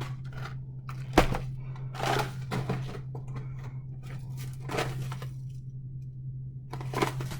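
Frozen food packages and containers handled while sorting a freezer: a sharp knock about a second in, then scattered rustles and clunks, over a steady low hum.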